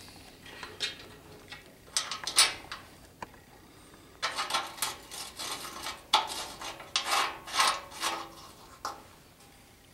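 Steel bracket and bolts clinking and scraping against a mower's guard as they are worked into place by hand. A few separate clinks at first, then a busy run of rattling and scraping from about four seconds in, stopping shortly before the end.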